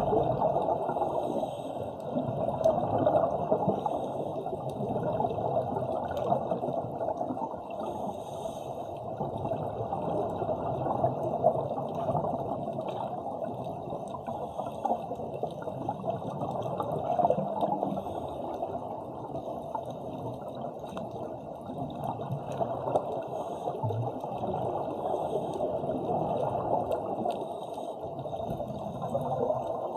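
Muffled underwater rush of moving water with gurgling and bubbling, swelling and easing every few seconds.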